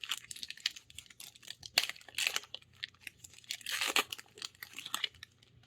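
Magic: The Gathering draft booster pack's foil wrapper being torn open and crinkled by hand, a run of crackles that is loudest about four seconds in.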